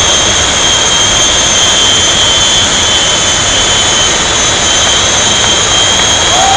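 Jet engines of a jet-powered semi truck running steadily at high power: a loud, even rushing noise with two high, steady whines on top.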